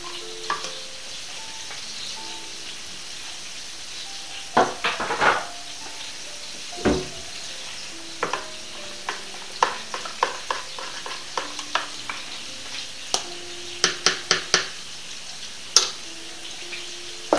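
Salad dressing being stirred in a plastic cup, with irregular clicks and taps of the utensil against the cup, some in quick runs, over a steady sizzle of food frying in a pan.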